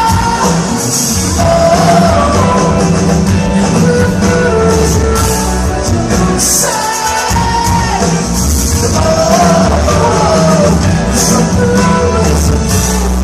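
Rock band playing live in a large hall: loud, full-band music with a driving low end and singing.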